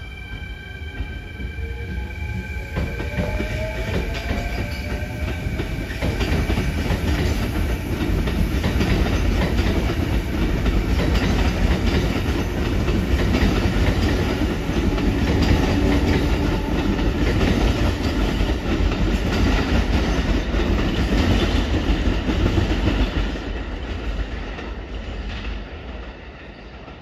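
Hanshin electric train running past close by over pointwork: a rising motor whine in the first few seconds, then a heavy rumble and rapid clatter of wheels over rail joints and switches that builds and fades near the end.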